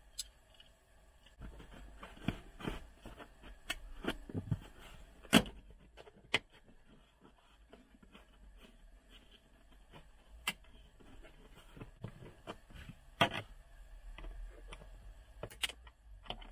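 Hard plastic interior trim of a VW Golf Mk7 being handled and pried loose: scattered sharp clicks and knocks at irregular intervals over faint rustling, the loudest about five seconds in.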